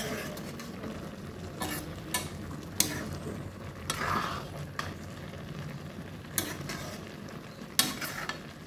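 Chopped ash gourd frying in oil in a steel kadai, sizzling steadily as a steel spoon stirs it and clinks sharply against the pan about six times.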